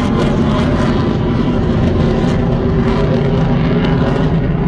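Military jet flying past high overhead, its engines making a loud, steady rumble.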